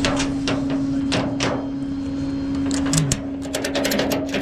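Tow rigging being hooked up under the truck: a series of sharp metal clicks and knocks that come quicker from about three and a half seconds in, over a steady engine hum.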